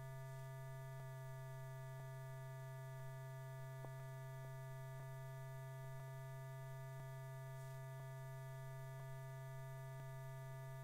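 Low, steady electrical hum in the soundtrack, with its overtones and faint ticks about once a second; no aircraft or other sound is heard.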